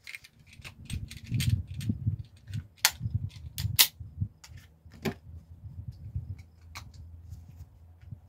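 9mm cartridges being pressed one at a time into a Glock 43 pistol magazine: a string of sharp metallic clicks at uneven spacing, several of them loud, over a low handling rumble.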